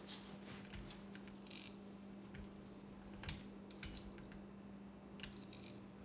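Faint small clicks and scrapes of a threaded plastic dipstick cap being unscrewed by hand and lifted out of a tractor's fluid fill port, over a steady low hum.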